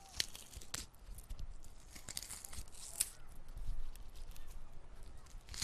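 Irregular crunching and tearing crackles, a wet sound like something tearing into flesh.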